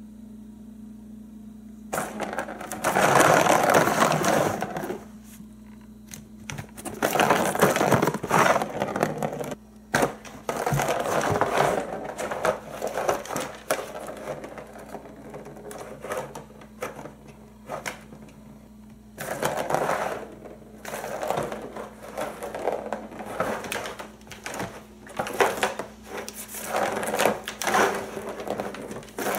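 Turbo Scratcher cat toy: its plastic ball rattles as it rolls around the plastic track, batted along by a cat's paw. It comes in spells of a second or two with short pauses between, the first starting about two seconds in.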